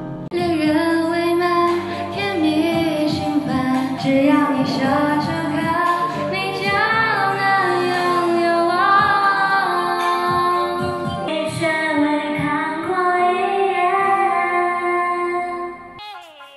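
Music: a song with a female lead voice singing over accompaniment, changing to a different passage near the end.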